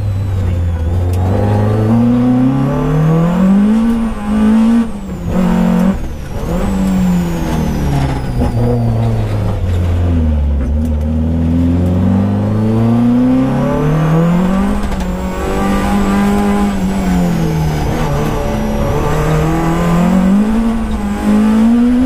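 Peugeot 205 GTi6 rally car's engine heard from inside the cabin at full stage pace, its pitch climbing and falling again and again as it is driven through the gears and lifted for corners. There are two short breaks in the sound about a quarter of the way in.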